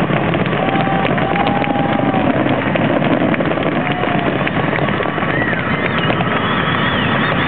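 Fireworks crackling and popping in rapid, dense succession over a steady din, with a few drawn-out voices calling out.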